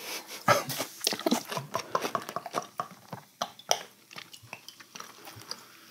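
Beer being poured from a glass bottle into a glass: a run of small splashes and crackles of foam, thinning out after about four seconds.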